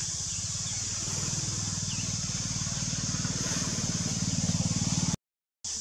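An engine running steadily, its low pulsing even and unbroken, under a steady high hiss; the sound cuts out abruptly about five seconds in and resumes a moment later.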